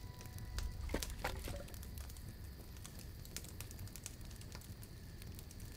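Wood campfire burning, with scattered crackles and pops of the logs, a couple of sharper ones about a second in, over a low steady rumble.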